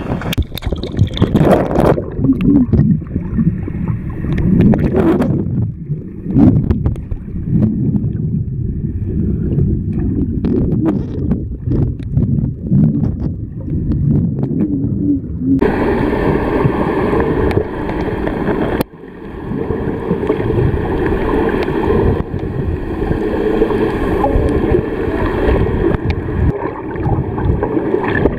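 Wind and water lapping at the sea surface for a couple of seconds, then the muffled gurgling and bubbling of a camera held underwater, with scattered clicks. From about halfway through a faint steady hum sits under the water noise.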